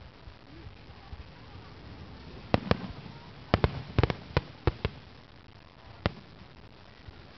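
Aerial firework shells bursting overhead as sharp bangs. After a lull of about two and a half seconds, a quick cluster of about eight bangs runs to about five seconds in, and one last bang follows about six seconds in.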